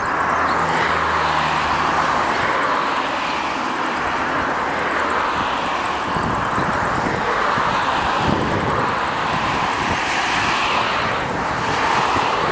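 Airbus A321 jet engines, a loud steady rush, as the airliner rolls along the runway. From about halfway through, wind buffets the microphone underneath.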